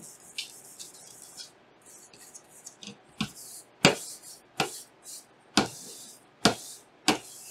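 Paper towel soaked in isopropyl alcohol rubbed over graphics-card parts in short, brisk scrubbing strokes, about one a second, growing sharper from about three seconds in.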